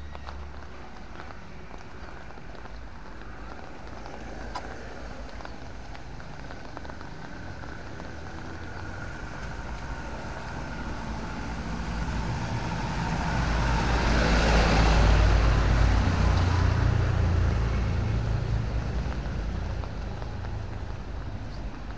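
A motor vehicle approaching and passing close by on a wet road, its engine and tyre hiss building over several seconds, loudest about two-thirds of the way through, then fading away.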